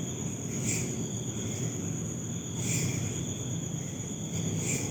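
Crickets trilling steadily, with a brief higher pulse recurring about every two seconds over a low background hiss.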